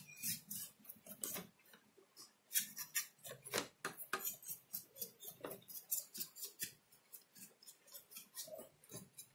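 A brush scrubbing dust off the circuit board inside a CRT television: quick, irregular scratchy strokes, several a second.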